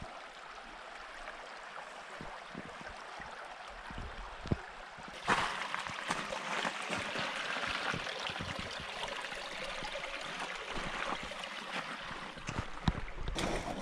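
Small mountain river running steadily, its rush growing louder about five seconds in, with a few soft low knocks over it.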